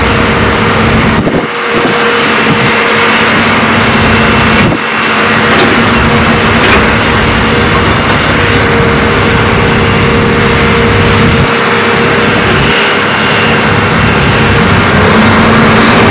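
Diesel engines of Hitachi ZAXIS hydraulic excavators running under load with a steady hum while they dig and swing, dumping soil into a dump truck. The level dips briefly twice in the first five seconds and rises slightly near the end.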